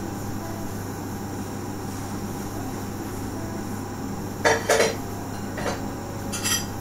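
A steady low hum with short, sharp clinks: two close together about four and a half seconds in, then two fainter ones over the next two seconds.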